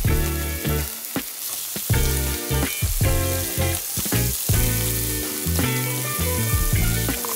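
Thin slices of beef sizzling as they fry on a hot grill plate over a tabletop gas stove, with a steady hiss throughout. Background music with struck notes plays over it.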